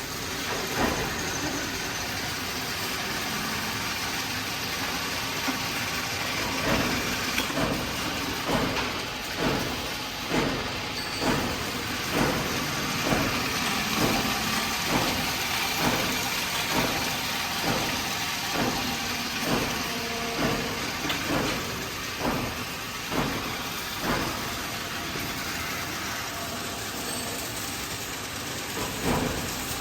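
Workshop machinery running steadily, with an even surge about once a second.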